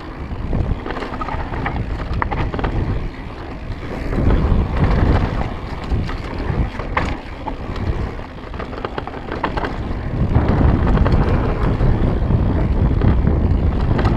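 Mountain bike riding fast down a dirt trail: wind buffeting the microphone and tyres rumbling over the dirt, with scattered clicks and rattles from the bike. The rumble swells about four seconds in and again from about ten seconds.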